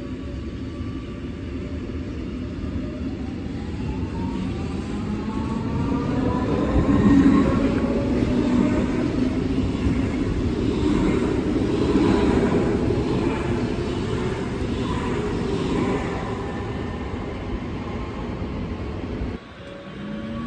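DB class 424/425/426 electric multiple unit accelerating: its traction equipment sings in several tones that rise together in pitch over a few seconds, while the running noise of wheels on rail grows louder, then holds and slowly eases. The sound drops off suddenly near the end.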